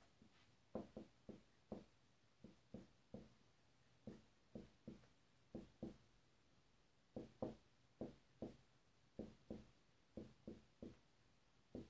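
Dry-erase marker writing on a whiteboard: a string of quiet, short taps from the marker tip striking the board, coming in uneven clusters as each symbol is written.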